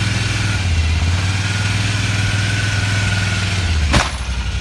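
TGB Blade 1000 ATV engine running low and steady as it creeps up onto a tilt-bed trailer. About four seconds in comes a single sharp metallic clunk as the trailer bed tips down level under the quad's weight.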